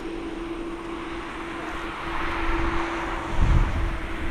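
Boeing 737-800 freighter's CFM56-7B turbofan engines at takeoff thrust as the jet lifts off and climbs away: a steady jet roar over a constant low hum. The roar swells about two seconds in, and a deep rumble grows louder near the end.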